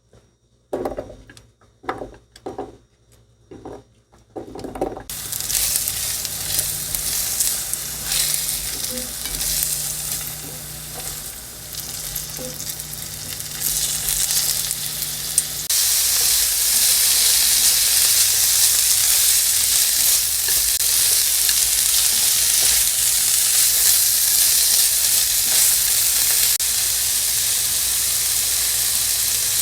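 A few knocks, then food sizzling in a hot frying pan as it is stirred. The sizzle jumps louder about halfway through and stays steady.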